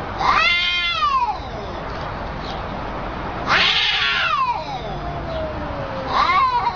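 Cat yowling, a challenge to another cat: three drawn-out yowls, the middle one the longest and falling in pitch as it fades.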